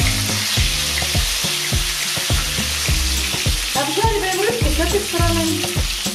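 Pollock pieces frying in hot vegetable oil in a frying pan: a steady sizzle, with the oil spitting. A wooden spatula turns the fish, with frequent light knocks against the pan.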